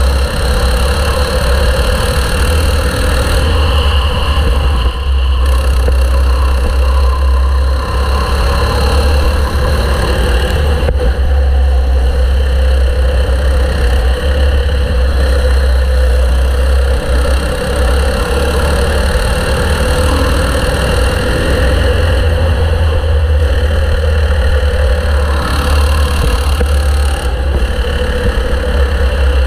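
Go-kart engine running steadily as the kart laps the track, heard close up from the kart's own onboard camera, with a heavy low rumble throughout.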